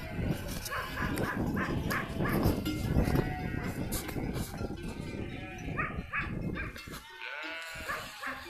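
A flock of sheep bleating, many short calls overlapping one another, over a low rumble that fades about seven seconds in.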